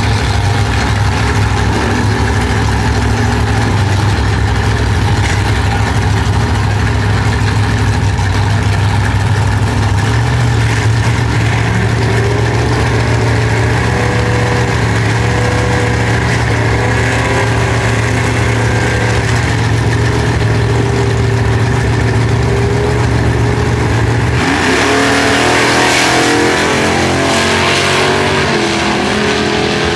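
Two classic drag cars, a first-generation Chevrolet Camaro and an older sedan, idling at the start line with a steady low engine drone. About 24 seconds in they launch, and the engines rev hard as the cars accelerate away down the strip.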